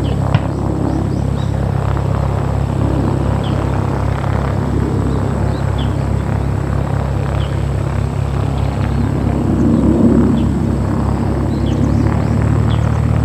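A light propeller aircraft's piston engine running steadily at low power, with its pitch shifting up slightly near the end. Short high chirps come and go on top.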